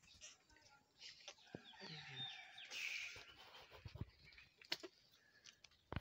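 Faint, scattered clucks from foraging chickens, with a few thin high bird chirps and a short burst of noise about three seconds in.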